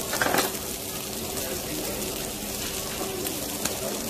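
Beef intestine sizzling steadily on a hot griddle pan, with metal tongs turning the pieces and clicking against the pan a few times.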